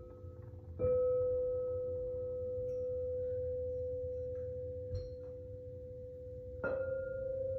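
A struck metal sound-healing instrument ringing a steady, clear tone. It is struck about a second in and again near the end, and each strike rings on and slowly fades.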